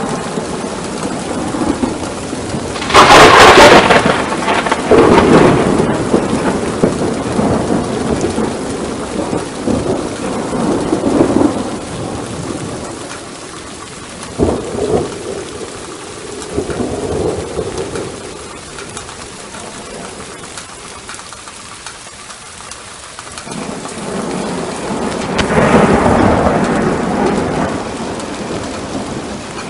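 Thunderstorm: steady rain with rolling thunder. A loud clap about three seconds in rumbles on for several seconds, a short sharp crack comes near the middle, and another rumble swells near the end.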